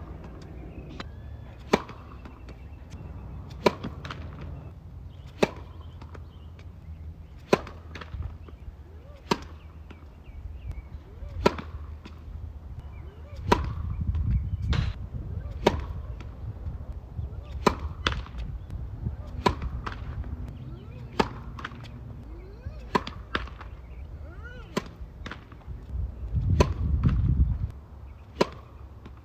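Tennis serves being hit: a sharp pop of racket strings on the ball every second or two, with fainter ticks between. A low rumble swells twice, in the middle and near the end.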